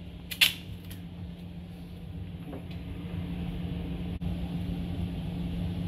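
Steady hum and low rumble of a running HVAC air handler close by. Duct tape being wrapped onto cable ends gives a brief sharp crackle about half a second in.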